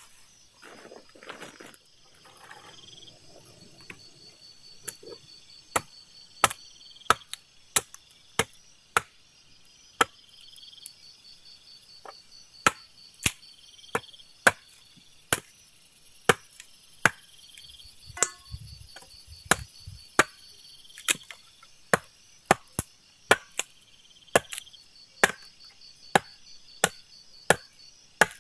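Wood being chopped: a long run of sharp, evenly spaced strokes, about three every two seconds, starting a few seconds in.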